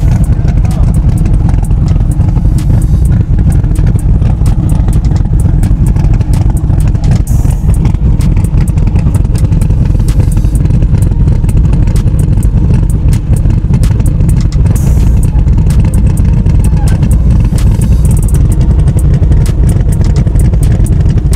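Drag-racing pickup truck's engine idling, loud and steady, with most of its sound deep and low and no revs.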